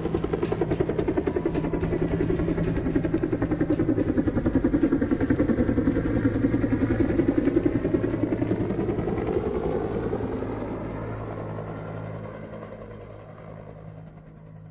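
Light helicopter running, its rotor blades chopping fast and steadily. The sound fades away over the last few seconds.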